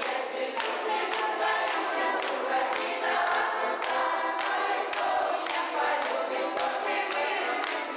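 A group of men's and women's voices singing a Russian folk game song together, with hand claps keeping the beat about twice a second.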